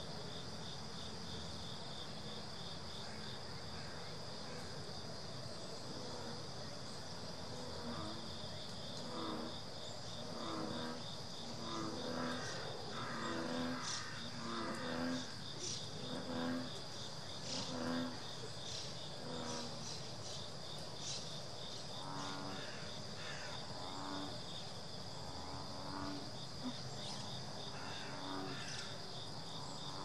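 A steady chorus of trilling insects. Over it, about a quarter of the way in, a series of low, pitched calls begins, repeating roughly once a second; they pause briefly and return for a second bout near the end.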